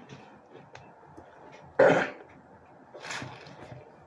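A woman coughing to clear her throat after food tickled the back of it while eating: one loud sharp cough about two seconds in, then a softer one about a second later.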